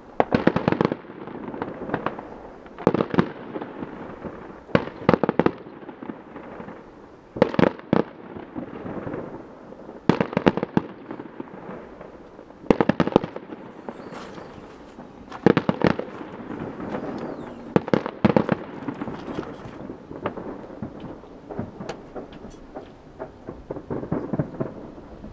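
Fireworks going off around a town: clusters of sharp bangs every two to three seconds, over a steady background rumble between them.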